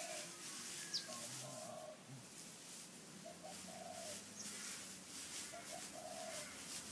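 A dove cooing, a phrase of two short notes and a longer one repeated about every two seconds, over the faint rustle of loose straw being scooped and tossed by hand. A single short, high rising chirp about a second in.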